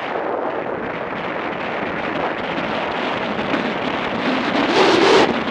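Wind rushing over the microphone of a camera on a moving motorcycle, mixed with engine and road noise, rising to a louder rush near the end.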